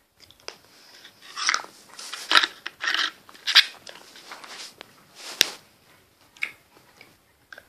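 Candy sticks being chewed close to the microphone: a string of short crackly crunches, then a sharp click past the middle. The candy crackles in the mouth like popping candy.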